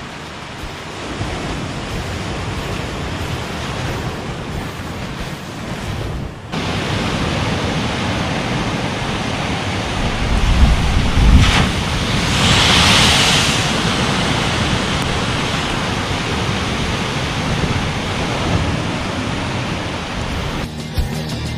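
Rough sea surf washing and breaking against rocky limestone cliffs, a steady rushing hiss with a louder wave crash about halfway through. Wind rumbles on the microphone just before the crash.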